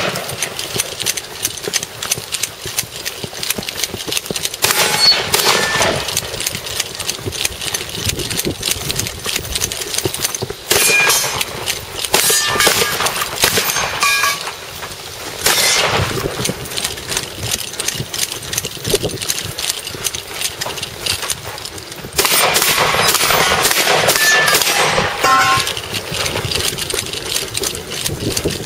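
Shotgun shots, with steel targets ringing and clanging as they are hit, in several separate groups. Steady knocking and rustling from a camera carried on the move runs underneath.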